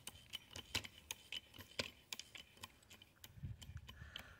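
Light, quick clicking, about three or four clicks a second, from a hand hydraulic cable-lug crimper being handled and worked at its die.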